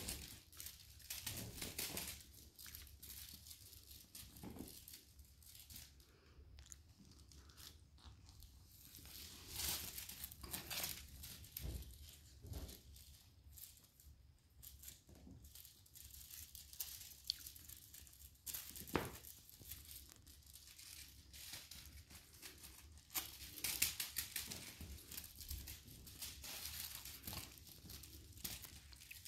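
Maine Coon kittens playing: faint, irregular rustling and scuffling of paws and claws on tile and rug as they scamper and pounce, with scattered small clicks.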